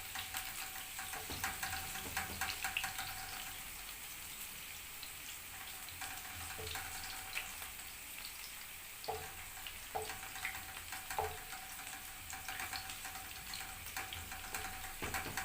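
Chopped onion sizzling as it fries in hot oil in a pan, a steady fine hiss. A few sharp clinks of a spoon against the pan as it is stirred, about halfway through.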